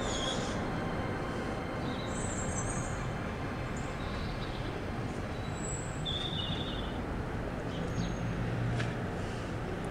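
Steady outdoor street ambience: a low rumble of distant traffic with a few short, high bird chirps scattered through it.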